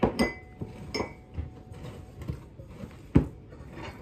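Hands squishing and working sticky flour-and-water dough in a glass mixing bowl, with a series of sharp glass clinks and knocks, a few ringing briefly. The loudest is a dull thump a little after three seconds.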